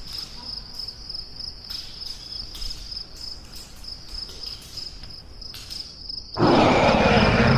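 Crickets chirping steadily in a rapid pulsing trill. About six seconds in, a sudden loud rushing noise breaks in for over a second, much louder than the crickets.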